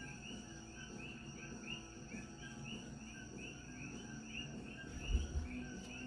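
Steady rhythmic chirping, about three short high chirps a second, like crickets, with one soft low thump about five seconds in.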